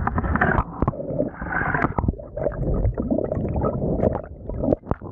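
Water gurgling and splashing close to the microphone, in irregular bursts with many sharp knocks and clicks.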